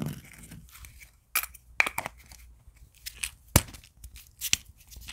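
White plastic coin-tube caps being handled: a series of sharp plastic clicks and knocks with scraping and rustling between them.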